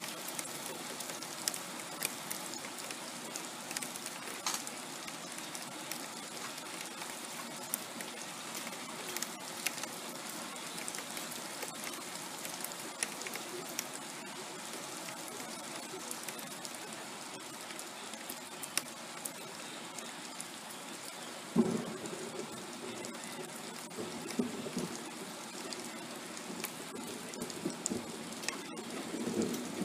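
Steady rain falling, with scattered sharp drips and taps. About two-thirds of the way through, thunder breaks in with a sudden onset and rumbles on unevenly, swelling again near the end.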